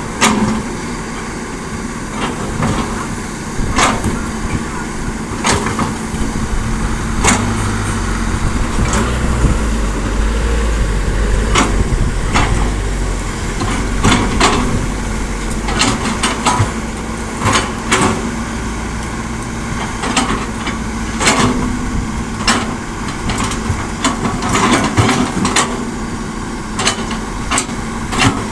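Hitachi excavator and dump trucks at work loading hard soil: diesel engines running steadily, with many sharp clanks and knocks scattered throughout. A deeper engine rumble swells for several seconds in the middle.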